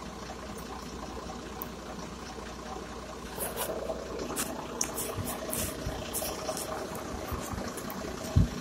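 Steady low background rumble with scattered light clicks and a faint steady tone joining about halfway through, and a single louder thump near the end.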